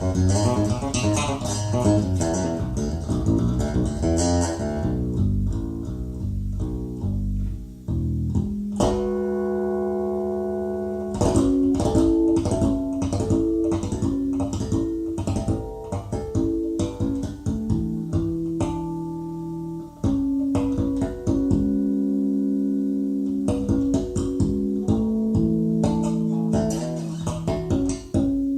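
Recorded music played back through Focal Chorus 726 S loudspeakers: a guitar piece with bass guitar. It is dense for the first few seconds, then turns to sparser plucked notes that are left to ring.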